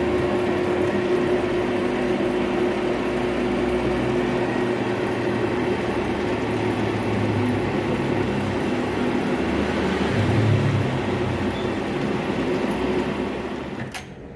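Electric car lift motor running steadily with a whirring hum as it raises a car; it stops near the end.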